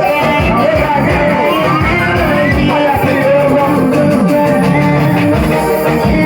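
Loud, steady music with a singing voice and guitar, with a rising slide in the melody about two seconds in.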